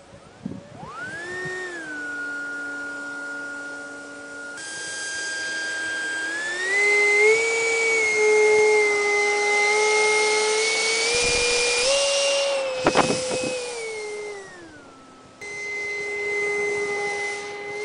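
High whine of a model L-39 jet's engine as it taxis, its pitch rising and falling with the throttle: it climbs about a second in, steps up louder in the middle, winds down near the end, then rises again.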